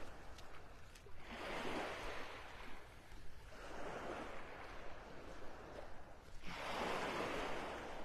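Small waves washing up on a sand beach at the water's edge, three gentle swells of surf a couple of seconds apart.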